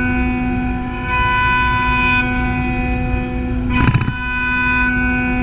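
CaMaster CNC router spindle running with a steady multi-tone whine while a large flat-bottomed bit clears a pocket in a wooden board. A short, louder burst of cutting noise comes about four seconds in.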